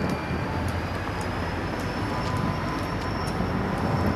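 EMD GP40-2 diesel-electric locomotive, its turbocharged 16-cylinder two-stroke engine running with a steady low rumble as it creeps along at slow speed. A thin high whine holds throughout, rising slightly, with scattered light ticks from the wheels and cars on the rails.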